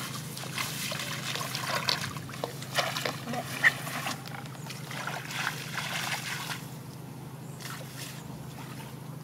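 Hands splashing and sloshing in shallow muddy water in irregular bursts, with one sharp splash near the middle. They die down about two-thirds of the way through. A steady low hum runs underneath.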